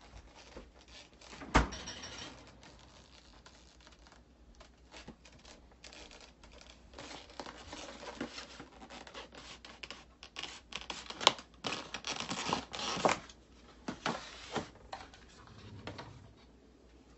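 Plastic food packaging being handled: crinkling and rustling with scattered clicks and knocks as the box and tray are set down on the counter. One sharp knock about a second and a half in is the loudest.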